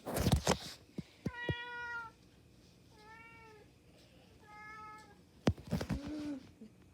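A cat meowing three times, short calls about a second and a half apart, the later two rising and falling in pitch. A brief noisy burst comes just before the first meow, and a few clicks and a short low sound near the end.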